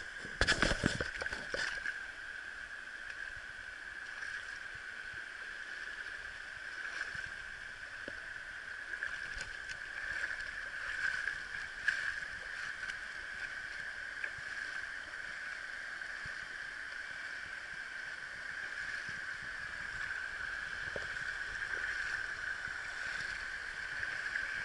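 Shallow river running over stones, a steady rushing of water close by. A few knocks from the camera being handled in the first two seconds.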